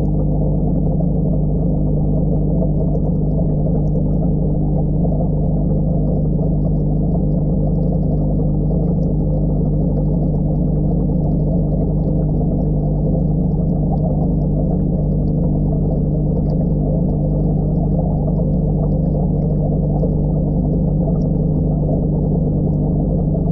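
Aquarium air pump and sponge filter heard from underwater in the tank: a steady, muffled hum with air bubbling through it.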